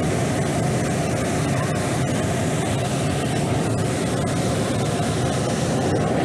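Hot air balloon's twin propane burner firing overhead in one long, loud, steady blast, heating the envelope while the basket is still on the ground before lift-off.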